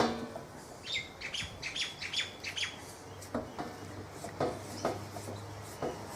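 A small bird chirps about six times in quick succession, each note falling in pitch. Then come several sharp clicks and knocks of plastic hose fittings being handled and screwed tight.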